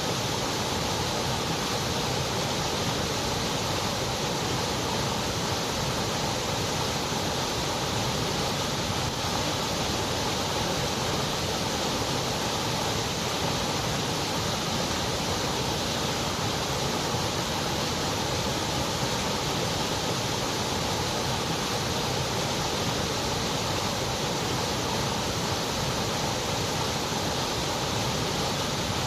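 Steady white noise: an even, unchanging hiss with no other sounds.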